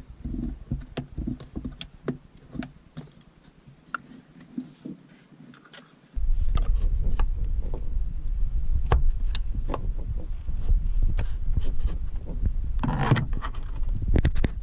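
Scattered clicks and knocks of plastic clips and the seat backrest being worked free with a flathead screwdriver. About six seconds in, a loud low rumble starts abruptly and runs on under the clicks, with a louder clatter near the end.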